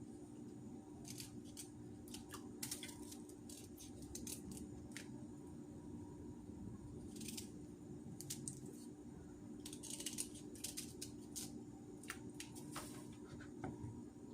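Kitchen knife cutting through unpeeled ginger root: a run of irregular crisp cuts, with a steady low hum underneath.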